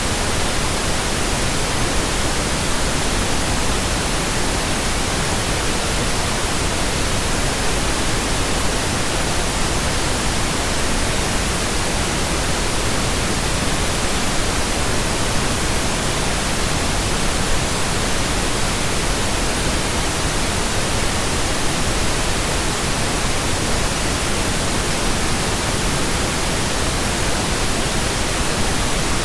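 Steady, unchanging pink noise: an even hiss spread over the whole pitch range, with no tones or breaks.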